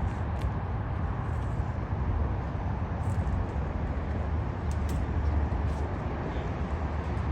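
Steady low rumble of a vehicle running, with a few faint clicks and ticks over it.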